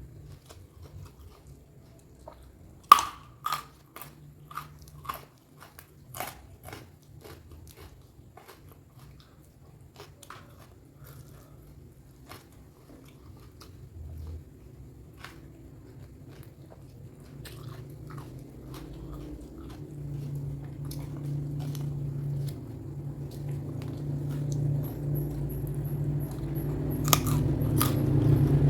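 A person biting and chewing crunchy food, raw vegetables and hard old jengkol, close to the microphone, with a cluster of sharp crunches about three to six seconds in and softer chewing after. A low rumble grows steadily louder through the second half.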